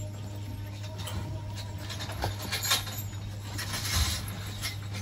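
Scattered rustling and soft knocks of movement in a barn, loudest about halfway through and again near four seconds in, over a steady low hum.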